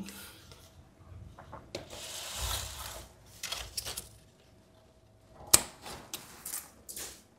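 Scissors cutting dry, brittle fronds off a potted palm: a rustle of dry leaves about two seconds in, then a run of sharp snips and clicks, the loudest about five and a half seconds in.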